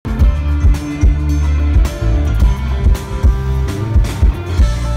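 Live rock band playing, with guitar, electric bass and drums keeping a steady beat, heard from the audience in the hall.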